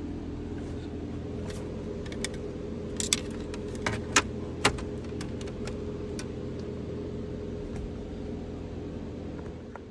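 Light metallic clicks and clinks of metal parts being handled while the shifter's mounting holes are lined up, with a few sharper ones about three to five seconds in. A steady hum runs underneath.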